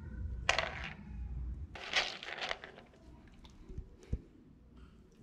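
Bornean orangutan handling and eating food: two bursts of crunching and rustling, about half a second and two seconds in, then a few small clicks.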